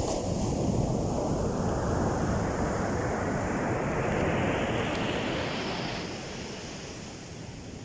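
Heavy ocean surf breaking on a beach: the rush of a big wave swells for about five seconds, then dies away near the end. The sea is rough, with very high waves.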